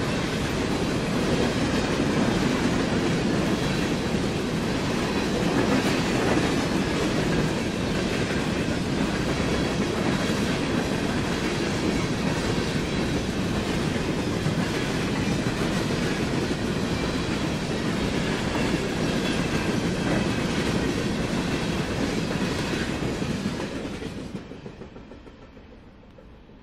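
Freight train of empty flatcars rolling past: a steady rolling rumble with faint repeated clacks from the wheels, which dies away about 24 seconds in.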